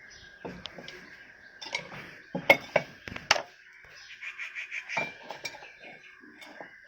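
Metal clinks and scrapes of a screwdriver prying open a ceiling fan's metal motor housing: a run of sharp knocks and taps at uneven intervals, the loudest around the middle.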